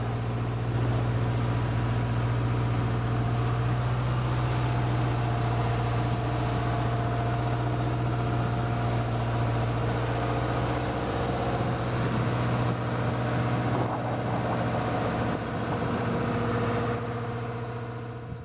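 A boat engine running steadily with a low, even drone.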